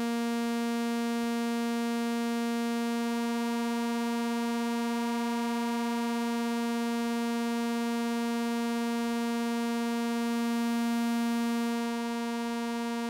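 Steady buzzing synthesizer tone from a Eurorack modular system: an oscillator signal at one unchanging pitch passing through an Arkan voltage polarizer, with the input and bias signals mixed together. Near the end it swells slightly, then settles a little quieter as a knob is turned.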